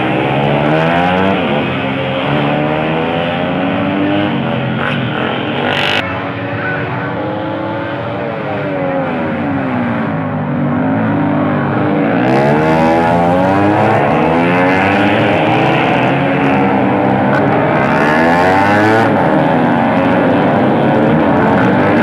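Several tuned road-race motorcycle engines running at high revs, their pitches rising and falling as they change gear and pass by, overlapping one another. The sound changes abruptly about six seconds in and again about twelve seconds in.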